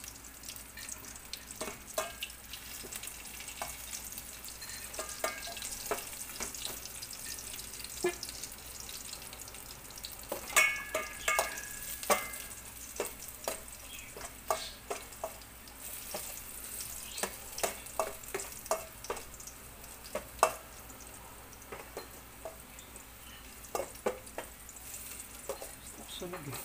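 Ginger and garlic slices frying in oil in a stainless steel pot, sizzling steadily, while a utensil stirs them with frequent light clicks and scrapes against the pot.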